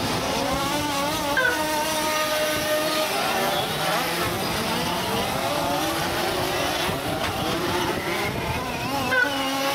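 Large-scale radio-controlled off-road buggies racing, their small two-stroke engines revving up and easing off, with several engines heard at once, their pitches rising and falling.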